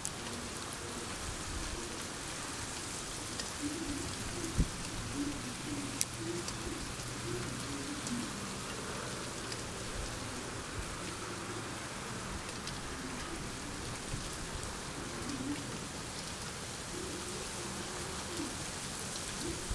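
Steady rain falling and pattering on surfaces, with scattered louder drips.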